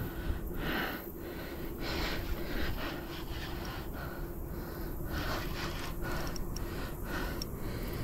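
A man breathing hard and fast, short breaths a little under two a second, from the strain of fighting a large fish on rod and reel.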